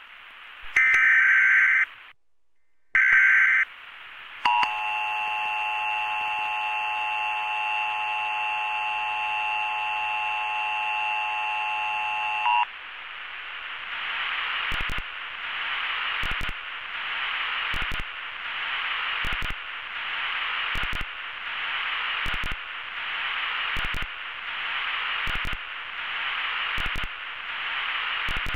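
Emergency Alert System broadcast signals: short warbling data bursts of the EAS header, then the steady two-tone attention signal held for about eight seconds. After it cuts off, hissing static takes over, swelling about every second and a half, with sharp clicks.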